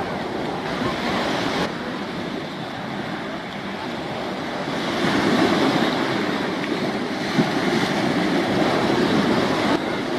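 Wind buffeting the microphone over choppy water, with waves washing; a steady rush that swells a little about halfway through.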